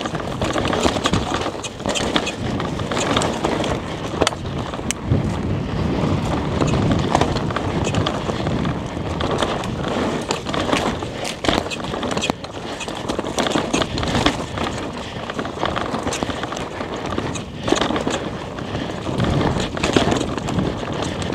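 Rocky Mountain Altitude PowerPlay e-mountain bike coasting fast downhill on a loose, dusty dirt trail with its chain broken. Steady tyre noise on the dirt, with frequent sharp clicks, rattles and knocks from the bike over bumps.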